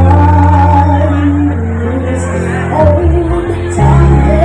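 A child singing a song over a backing music track, holding long notes above a steady bass line.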